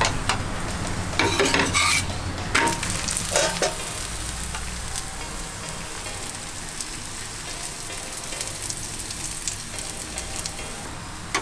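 Besan koki (gram-flour flatbread) sizzling as it shallow-fries in oil, a steady hiss. Several short, sharp clatters come in the first few seconds.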